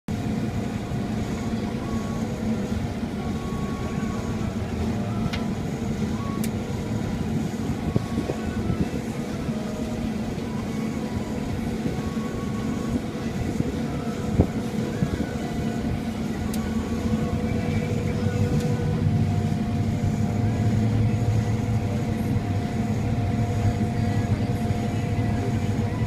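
John Deere S670 combine harvester running under load while harvesting soybeans, heard from inside the cab: a steady drone of engine and threshing machinery with a few steady whines, growing a little louder in the second half. A few sharp clicks stand out, the loudest a little past the middle.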